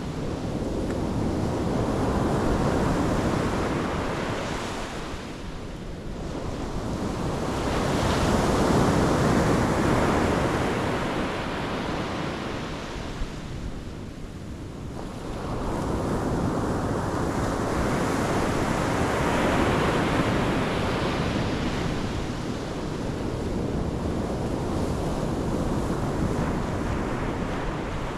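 Pacific Ocean waves breaking and washing onto the shore, the surf swelling and fading several times as each wave comes in and draws back.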